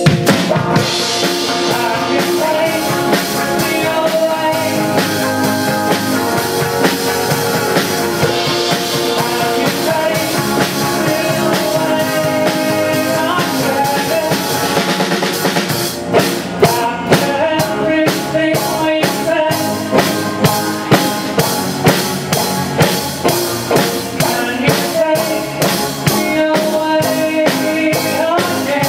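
Live band playing an upbeat song on guitars, bass and drums, with a woman singing lead. From about halfway through, the drum beat comes forward in sharp, regular hits.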